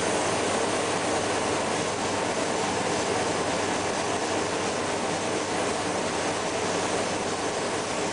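Steady, even hiss of spraying from a spray gun during chrome spray-plating of a small part, holding the same level throughout.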